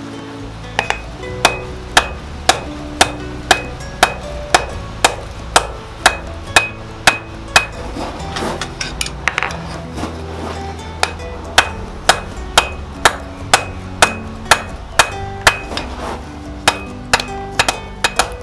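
Blacksmith's hammer striking steel on an anvil, about two blows a second with a short pause partway through, each blow leaving a brief metallic ring: forging a kukri blade.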